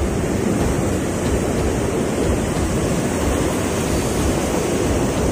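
Sea surf surging and breaking on coastal rocks, a steady rushing wash, with wind on the microphone.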